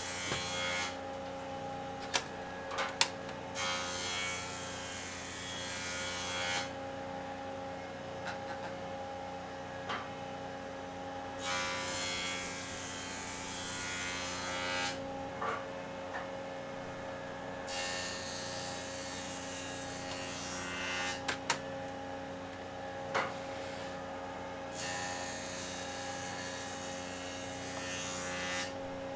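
Portable cassette gas stove's burner hissing in stretches of a few seconds, with a few clicks and knocks from a plastic hose and the stove being handled, over a steady low hum.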